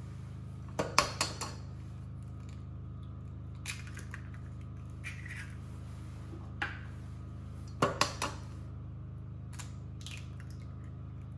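Eggs cracked against the rim of a stainless steel mixing bowl: two clusters of three or four sharp taps, about a second in and about eight seconds in, with a few fainter clicks between, over a steady low hum.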